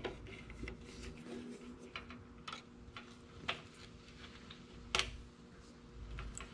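Scattered small clicks and taps of a screwdriver and fingers on the screws, nuts and chrome housing of a motorcycle's front-fender tip light being put back together. The sharpest click comes about five seconds in.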